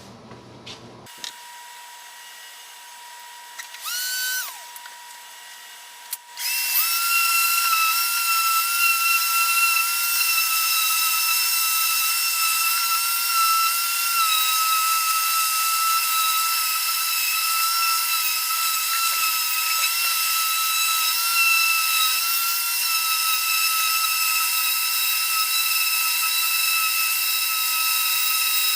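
Ridgid 5-inch orbital sander, connected to a shop vac, sanding a wooden table base with a 60-grit disc. It starts up briefly about four seconds in, stops, then starts again about six seconds in and runs steadily as a high whine over a hiss.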